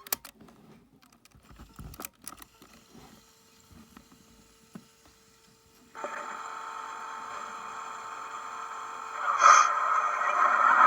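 Cassette recorder being operated: a sharp click at the start cuts off a steady tone, and a few more clicks and knocks follow. About six seconds in, a steady tape hiss with held tones starts and grows much louder near the end.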